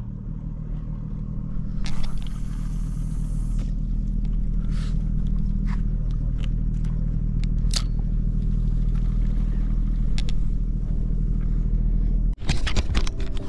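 Boat engine running nearby as a steady low drone that builds over the first two seconds and then holds. There is a brief hiss about two seconds in and a few sharp clicks. The drone cuts off near the end and music takes over.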